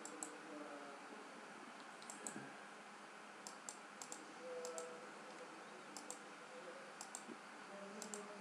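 Quiet, sharp clicks from someone working a computer, coming as about eight quick double clicks at uneven gaps of half a second to two seconds.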